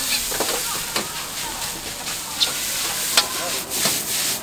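Food sizzling in a wok over a gas burner while a metal ladle stirs and scrapes it, with several sharp clinks of the ladle against the wok, ending as the food is tossed in the pan.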